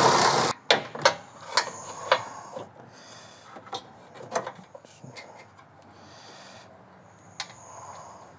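Cordless electric ratchet with a 10 mm swivel socket on a long extension, running briefly as it backs out a bolt. It is followed by a few sharp metallic clinks of the socket and tool, with a short ring. Then come quieter scraping and handling sounds, with one more clink near the end.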